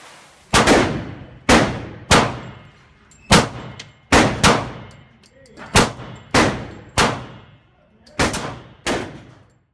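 Glock 23 Gen 4 .40-calibre pistol fired eleven times at an uneven, slow pace, some shots in quick pairs. Each report rings out with the echo of an indoor shooting range.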